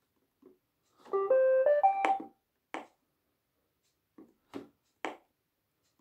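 iRobot Roomba 782e robot vacuum playing a short electronic tune of stepped, mostly rising beeps from its speaker, followed by several sharp clicks of its buttons being pressed.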